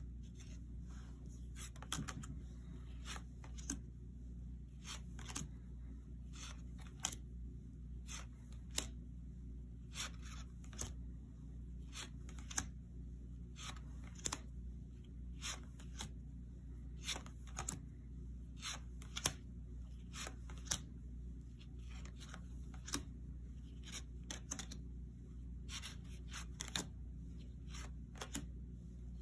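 Tarot cards being flipped over and laid down one after another, each giving a short, sharp snap of card stock, about one a second and unevenly spaced, over a steady low hum.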